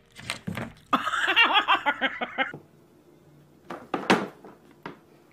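A person laughing in quick pulsing bursts for about a second and a half, then a short loud burst of sound a little later.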